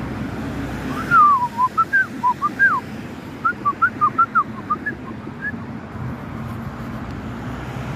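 A person whistling a quick run of short notes that slide up and down, starting about a second in and stopping about two-thirds of the way through, over the steady hum of street traffic.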